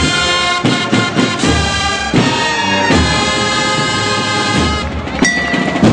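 A procession band playing a Holy Week march: loud brass chords entering suddenly, with drum strokes underneath.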